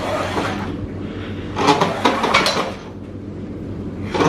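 A roller blind being worked by hand to raise it: its pull chain and mechanism rattle and clatter in bursts, the loudest stretch about two seconds in.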